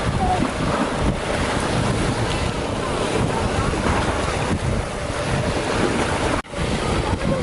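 Wind buffeting the microphone over the wash of the sea aboard a fishing boat at sea, a dense, steady rush. It drops out abruptly for a moment about six seconds in.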